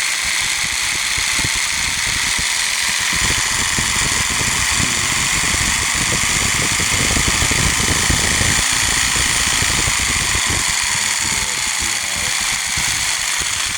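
Blue Ridge 4.5 A electric jigsaw running steadily, its motor and reciprocating blade loud throughout.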